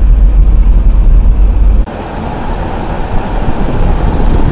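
Jeep driving on a gravel road, with a heavy low rumble of wind and road noise. About two seconds in, the sound drops abruptly to a lighter, even rushing of tyres on gravel.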